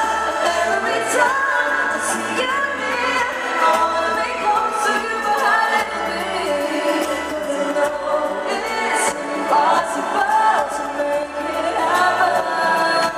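A woman and a man singing a duet into microphones over amplified backing music.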